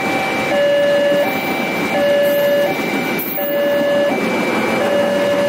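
Level-crossing electronic alarm sounding an alternating two-tone signal, each tone held for under a second, over the steady rumble and clatter of a passenger train's coaches passing over the crossing.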